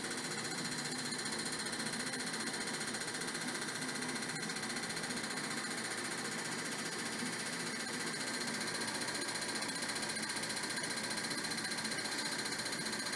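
ASNU fuel injector cleaning and testing machine running, its injectors pulsed electrically over and over in a fast, steady buzzing clatter with a steady whine on top.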